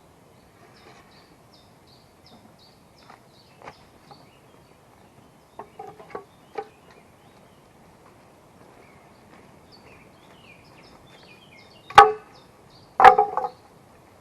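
Light knocks of wood on wood, then two loud sharp blows about a second apart near the end, the second trailing into a short rattle. A small bird sings in short repeated high notes in the background.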